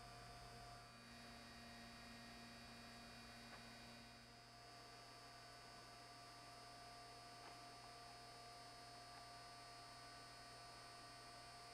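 Near silence: a faint steady electrical hum with a few thin constant tones above it.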